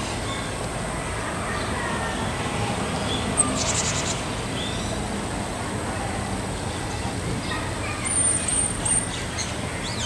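Japanese tit giving its call notes (jinaki, not song): a quick run of high, rapidly repeated notes about three and a half seconds in, then thin, very high calls around eight to nine seconds in, the loudest sounds here, over a steady background hiss.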